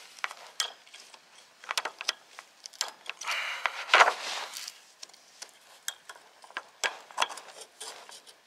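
Small metal clicks and scraping as multi-tool pliers work at the E-clip on the end shaft of an RV awning roller tube. The clicks come at an uneven pace, with a longer scrape and the sharpest click about four seconds in.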